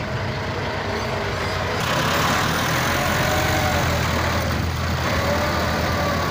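Diesel engine of a front-loader farm tractor running under load as the bucket is driven into a sand pile, getting louder about two seconds in.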